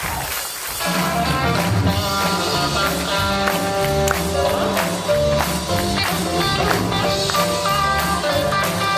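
Live band playing an instrumental intro, coming in about a second in with a steady bass line and held chords.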